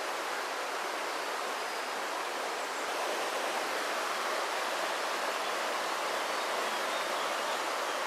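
Fast-flowing stream rushing over rocks and small rapids, a steady even rush of water.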